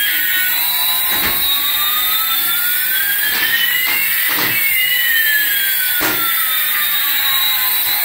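Jet-engine-like whooshing hiss with two whistling tones that sweep across each other, one rising steadily while the other falls. There are also a few brief knocks, about one, three and a half, four and a half and six seconds in.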